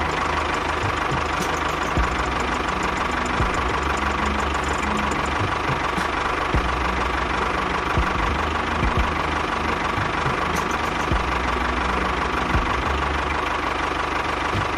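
Small motor of a miniature DIY machine running steadily, with a pulsing low rumble and occasional light clicks.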